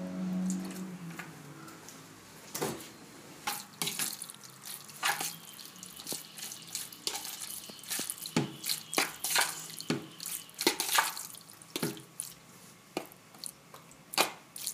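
Metal spoon stirring wet, seasoned raw liver strips in a plastic bowl: irregular squelches of the meat and clicks of the spoon against the bowl.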